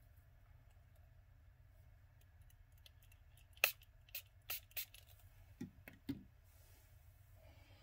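A quiet room with four sharp clicks, about a third of a second apart, roughly halfway through, then two soft low knocks.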